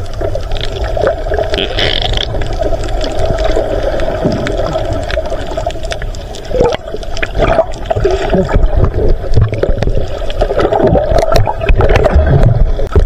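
Muffled sound of water heard through a camera held at and below the sea surface: sloshing and gurgling over a steady low rumble, with scattered sharp clicks that come thicker in the second half.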